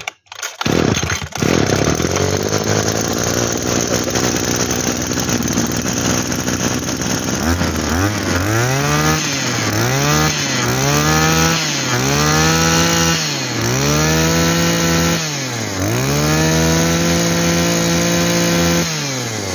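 Echo Green 24 cc two-stroke brush-cutter engine starting and running at a steady idle, then blipped up and down about six times before being held at high revs for a few seconds and let fall back. The seller judges it a strong engine.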